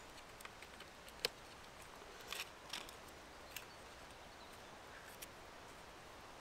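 A few light, separate clicks and taps from small camping gear being handled by hand, over a faint steady hiss.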